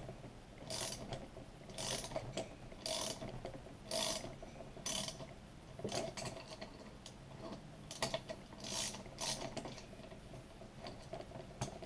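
Ratchet wrench clicking in short strokes, about one a second with a pause in the middle, as it turns down the bolt of a puller to draw a part off a 66cc two-stroke bicycle engine.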